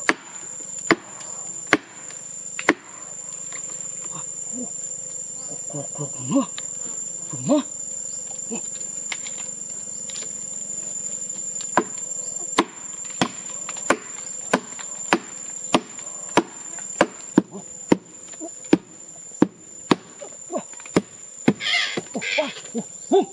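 Steady high-pitched drone of insects, typical of crickets, with sharp knocks or taps over it: a few irregular ones at first, then about two a second from about halfway through.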